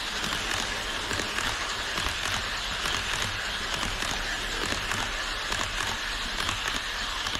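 HO-scale E5 series shinkansen model train running past on an elevated KATO Unitrack viaduct, its metal wheels rolling on the rails with a steady hissing rattle full of fine clicks.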